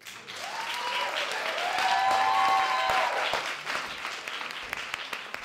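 Small audience applauding, swelling and then thinning out towards the end, with a few drawn-out cheers over the clapping in the first three seconds.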